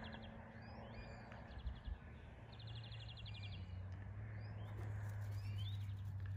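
Small birds calling outdoors: short chirps and quick rattling trills, several times over. A low steady hum runs underneath and grows a little louder partway through.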